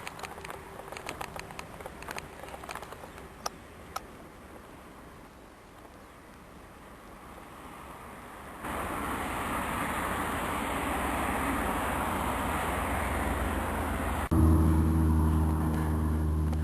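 Road and vehicle noise: a few scattered sharp ticks early on, then steady rushing road noise that comes in suddenly partway through, and near the end a steady low engine drone that starts abruptly.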